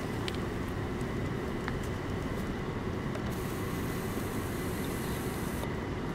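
Steady low room rumble, like building ventilation, with a soft hiss about halfway through and a couple of faint ticks.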